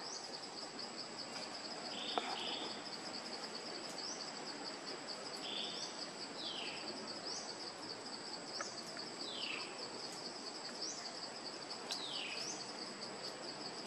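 Forest ambience: insects trilling steadily, with a thin high whine above them. Short descending calls repeat roughly every second and a half throughout.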